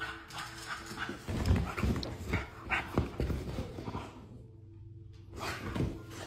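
A bulldog-type dog making a series of short, irregular sounds, busiest from about a second in until about four seconds, with one more cluster near the end.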